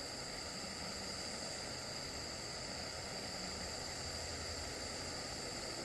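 Steady hiss of a butane soldering torch flame, used without its tip, heating a solder seal connector until its solder ring melts.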